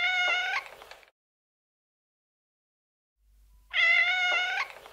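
Domestic cat meowing twice: one short meow at the start and a second, identical one about four seconds later, each under a second long.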